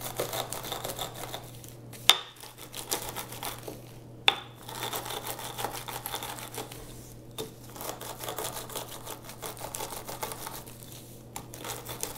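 Rolling pin pressed and rolled over roasted fennel seeds in a plastic bag, the bag crinkling and the seeds crunching as they are crushed. Two sharp knocks come about two and four seconds in.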